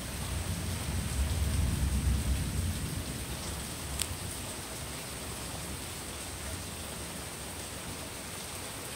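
Steady rain with a low rumble of distant thunder that swells in the first few seconds and then fades. A single sharp click comes about four seconds in.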